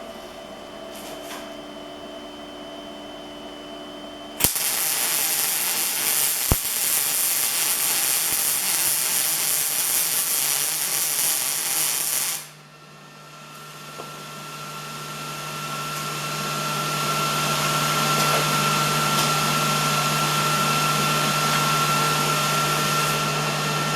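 MIG welding arc from a Miller Multimatic 215 laying a bead. It starts suddenly about four seconds in as a loud, steady sizzle and stops abruptly about eight seconds later. Afterwards a steady hum with a whine builds up over several seconds.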